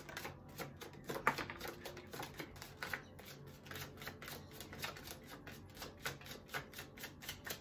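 A tarot deck being shuffled by hand: a fast, uneven run of light card clicks and taps, several a second, with a sharper snap about a second in.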